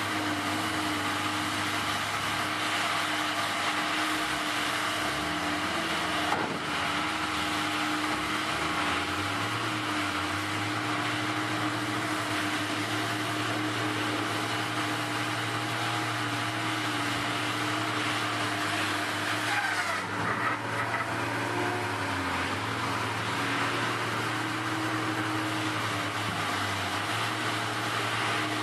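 A machine running steadily, a constant engine-like hum with a little pitch wobble about a third of the way in and again near two-thirds.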